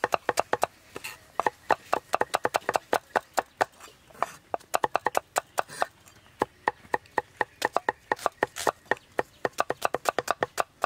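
Kitchen knife slicing shallots on a thick round wooden chopping block: quick, even knocks of the blade against the wood, several a second, broken by a few short pauses.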